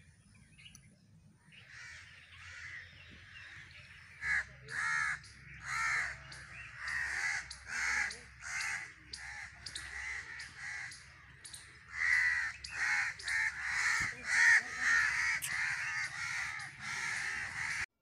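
Crows cawing over and over, a long run of harsh calls at about one or two a second over a faint low rumble, cutting off suddenly near the end.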